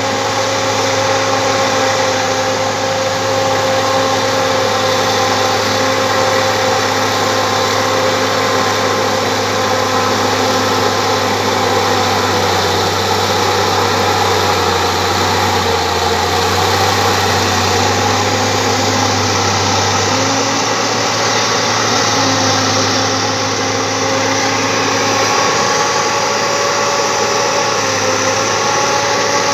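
Bulldozer's diesel engine running steadily, its pitch dipping slightly near the end.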